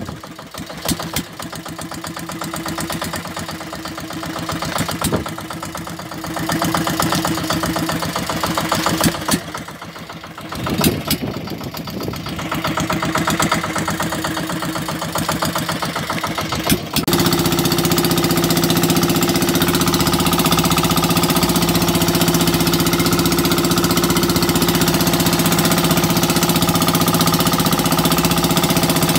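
Fishing boat engine running. It is uneven at first, with scattered knocks, then about two-thirds of the way through it changes abruptly to a louder, steady running sound.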